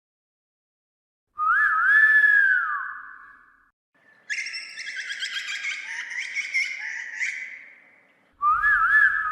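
Grey butcherbird singing: a clear whistled phrase of sliding notes about a second and a half in, a longer, richer warbling passage from about four to eight seconds, and another short whistled phrase near the end.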